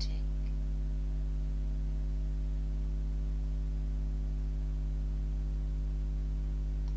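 Steady electrical mains hum, a low drone with a buzz of higher overtones that holds unchanged throughout.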